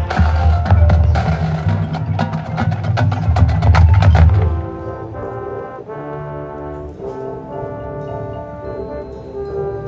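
Marching band playing: loud, dense percussion with a heavy low end and brass until about four and a half seconds in, then it drops to softer held brass chords with mallet percussion.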